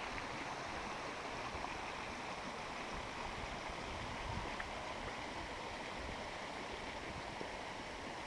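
A creek's water rushing steadily with no change.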